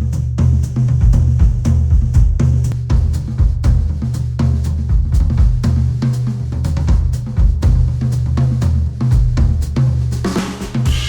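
Instrumental music, a drum kit of kick, snare and hi-hat in a steady beat over a deep bass line, played back through studio headphones and picked up by measurement microphones. A cymbal crash comes in near the end.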